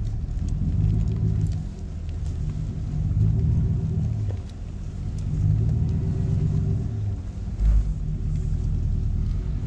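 Truck engine running low and steady, heard from inside the cab, swelling and easing every couple of seconds as it moves slowly. There is a brief low thump about three quarters of the way through.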